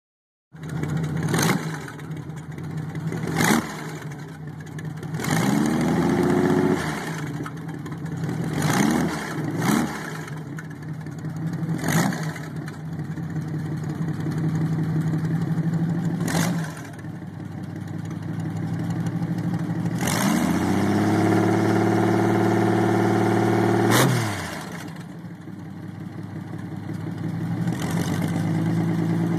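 Lincoln Zephyr flathead V12 engine in a custom motorcycle, running through short individual exhaust pipes. It idles and is revved in a few short blips, then held at higher revs for a few seconds before dropping back to idle. A few sharp clicks come through now and then.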